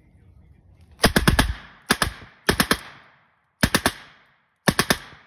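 An original 1941 German MP40 9 mm submachine gun firing full auto in five short bursts of a few rounds each, starting about a second in. Each burst trails off in echo.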